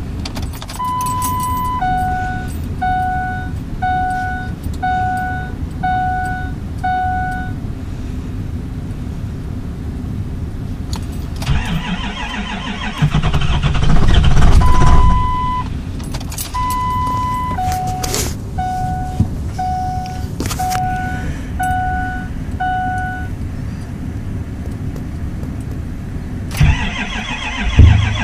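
Dashboard warning chime of a 2004 Ford F-350 with the key switched on for glow-plug preheat before a cold start. It gives a single longer beep, then six two-tone dings about once a second, and the whole sequence comes twice. Under it runs a low steady rumble, with a louder noisy stretch between the two series.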